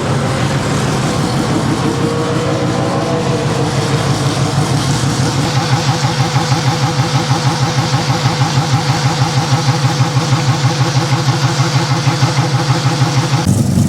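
A car engine running close by, with a few pitch shifts early on, then idling with a regular lumpy pulse of about four beats a second.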